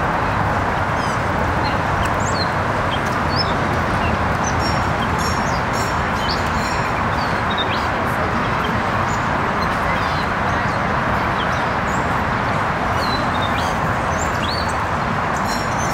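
Small birds chirping in short, scattered high calls over a steady, even background rush.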